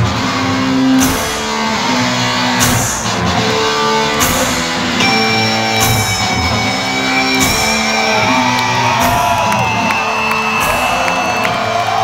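Live rock music played loudly over a concert sound system, heard from within the crowd: electric guitar and heavy drums, with a hard hit about every second and a half.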